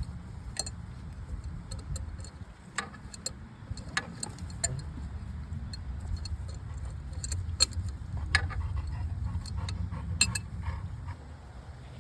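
Scattered light metallic clinks and taps of tools and fittings during work on a tractor's hydraulic steering ram, over a steady low rumble.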